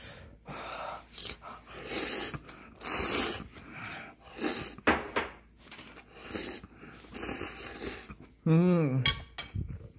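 A person eating a mouthful of ramen noodles: slurping and chewing in several breathy bursts, then a short hummed 'mmm' of enjoyment near the end.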